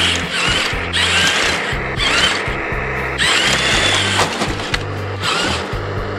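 Electric drive motors of an RC bulldozer whining, the pitch rising and falling several times as it speeds up and slows.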